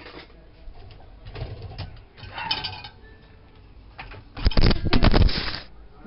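Handling noise from the camera being picked up and turned: a loud burst of rubbing and clattering on the microphone about four and a half seconds in, lasting about a second, with lighter knocks and rustles before it.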